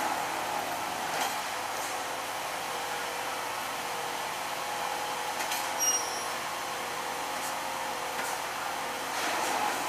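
Railway track tamping machine running with a steady mechanical whir and a faint hum over it, and a short sharp metal clink about six seconds in.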